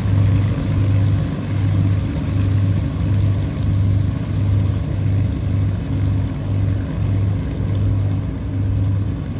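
Avro Lancaster's four Rolls-Royce Merlin V12 engines running as the bomber taxis away: a loud, deep drone that pulses about twice a second.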